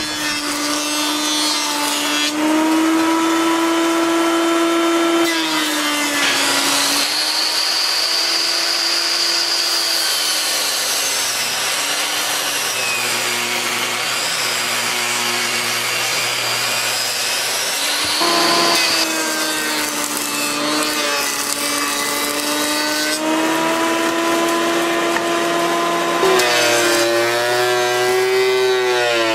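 Woodworking power tools, a table saw and a thickness planer, running as eastern red cedar boards are cut and planed to width and thickness. The sound is a steady motor hum whose pitch changes abruptly several times as one tool or cut gives way to the next.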